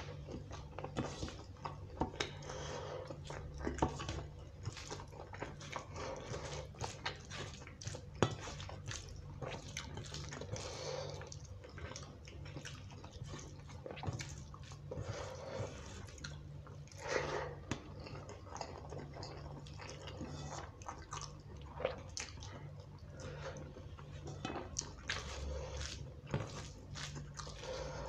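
Close-miked eating by hand: wet chewing and lip smacks on soft khichuri rice and chicken curry, with irregular sharp mouth clicks and squishy sounds of fingers mixing rice on a steel plate.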